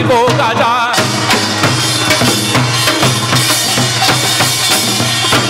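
A man's sung line ends about a second in, and a samul nori ensemble strikes up: janggu hourglass drum, buk barrel drum, kkwaenggwari small gong and jing gong played together in a dense, steady stream of strokes.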